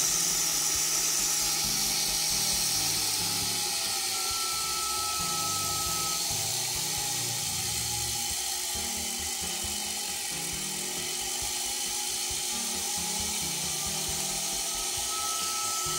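Sherline lathe's 90V DC motor, rebuilt with a new commutator, running the spindle at high speed with a steady, quiet whine: the motor runs smoothly after the repair.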